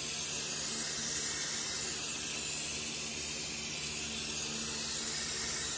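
Aerosol spray-paint can spraying: a steady, continuous hiss, unbroken all through.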